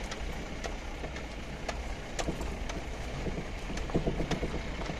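Vehicle driving along a rough dirt track: a steady low rumble of engine and tyres, with scattered clicks and knocks and a louder cluster of knocks about four seconds in.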